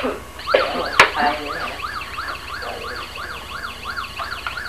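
Electronic toy siren wailing up and down about three times a second, starting about half a second in. A sharp knock comes about a second in.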